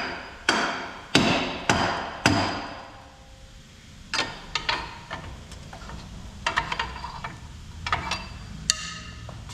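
Four ringing metal-on-metal hammer blows about 0.6 s apart, struck to knock loose a stuck part on a Jeep Wrangler JK's front suspension, followed by lighter clinks and taps of tools on metal.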